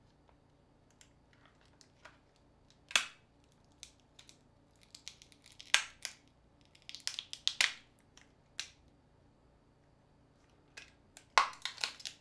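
Sharp plastic clicks and snaps from a smartphone being pried apart by hand. They come in small scattered clusters with quiet pauses between them.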